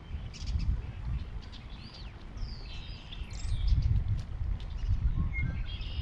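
Wind buffeting the microphone in gusts, strongest about halfway through. Over it, a few high, sliding bird calls, twice.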